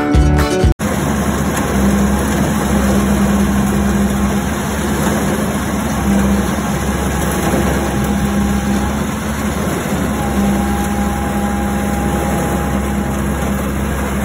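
Guitar music cuts off under a second in. Then a Komatsu mini excavator's engine runs steadily, with a faint high whine that comes in twice for a few seconds each time.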